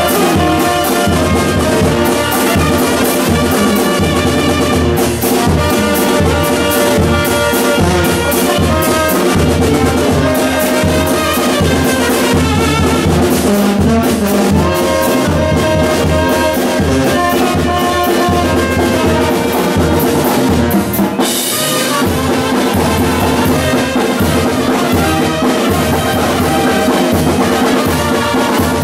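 Live brass band with sousaphone and trumpets playing a steady, rhythmic tune, the sousaphone's bass notes pulsing under the horns.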